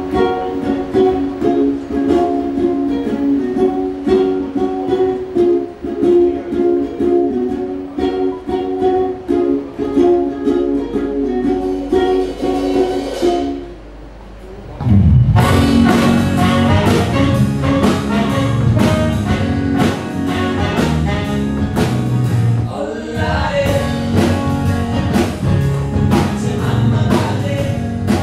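Live band music: strummed acoustic guitar chords for the first half, then a short drop and the full band coming in louder, with drums and bass, about halfway through.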